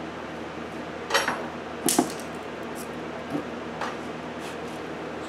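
Metal parts of a coilover assembly clinking and knocking as they are handled and fitted: two sharp clinks about one and two seconds in, the second the loudest, then a few lighter taps, over a steady background hum.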